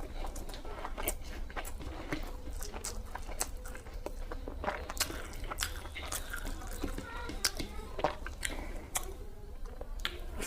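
Close-miked chewing and wet mouth clicks of someone eating rice with cabbage-and-potato curry: many short, irregular smacks with no rhythm.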